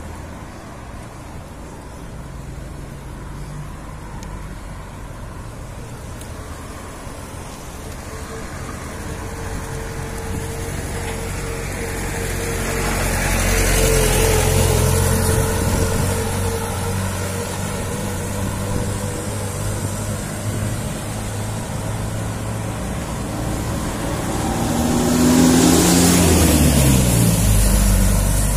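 Road traffic: motor vehicles running and passing close by, one swelling past around the middle and another near the end, its engine pitch dropping as it goes by.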